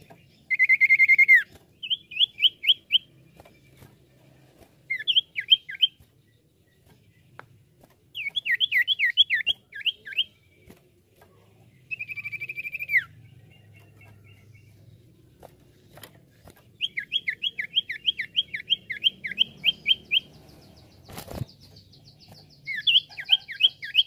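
A common iora (cipoh) singing. Its song alternates a few drawn-out clear whistles with fast runs of sharp, down-slurred chirps, delivered in bursts of one to three seconds with short pauses between. A single knock sounds near the end.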